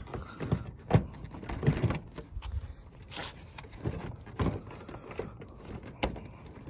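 Plastic push-pin retainers being pressed and wiggled into the plastic cover over a car's headlight, giving irregular sharp plastic clicks and knocks with rubbing and handling noise between them.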